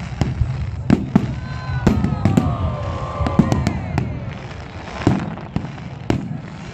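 Fireworks display: a steady run of sharp bangs and crackling over a low rumble. About a second in, several falling whistle-like tones sound together for two or three seconds.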